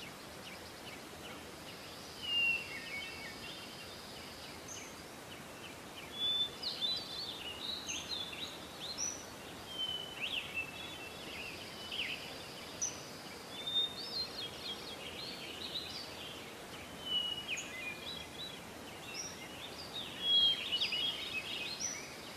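Birds chirping and calling in short, scattered calls over a faint steady outdoor background hiss.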